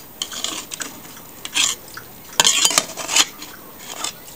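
A metal knife and spatula scraping and clinking against a stainless steel frying pan while a slice of baked matzo brei is cut and lifted out. The sound comes in several short bursts, the longest and loudest about two and a half seconds in.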